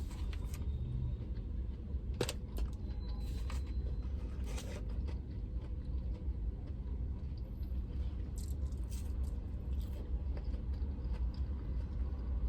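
Steady low rumble of a parked truck idling, heard from inside the cab, with a few short clicks and taps.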